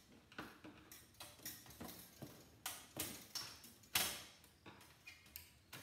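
Irregular light metallic clicks and taps of a screwdriver working inside a toaster's steel frame, reaching for a hard-to-get screw among the wiring. One sharper click about four seconds in is the loudest.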